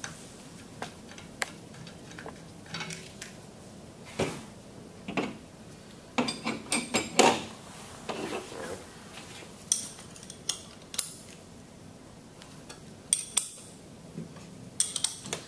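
Stainless steel pump parts and tools being handled on a tabletop during disassembly: scattered sharp metal clinks and knocks, several in quick runs.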